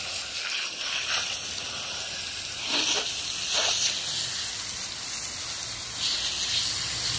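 Garden hose with a brass jet nozzle spraying water onto a bare GM 5.3 V8 engine's valve cover and block, a steady hiss that swells in patches as the jet sweeps over the metal. The engine is being rinsed of degreaser and grease.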